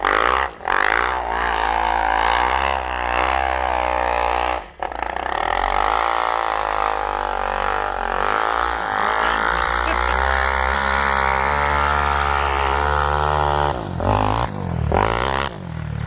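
Engine running close by, its pitch wandering slowly up and down as the revs rise and fall, with a brief break about five seconds in.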